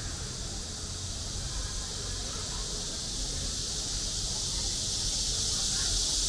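Outdoor alley ambience dominated by a steady high-pitched hiss that grows gradually louder, over a low rumble and faint distant voices.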